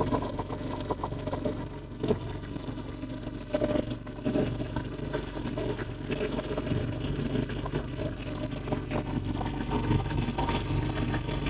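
Small motorboat's engine running steadily at low speed.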